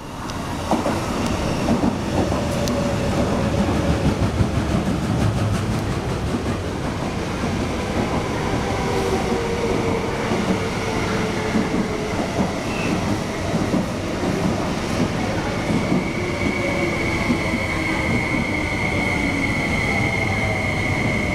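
East Rail Line SP1900 electric multiple-unit train running into a station platform and slowing to a stop, with steady rolling rumble and wheel clatter. A steady high squeal sets in over the last few seconds as it comes to a halt.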